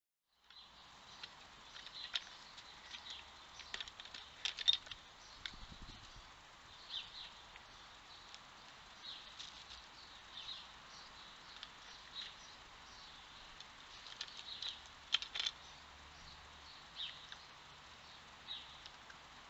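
Faint outdoor ambience of small birds chirping: many short, high, downward-falling calls at irregular intervals. A few sharp clicks stand out, the loudest about four and a half seconds in and again about fifteen seconds in.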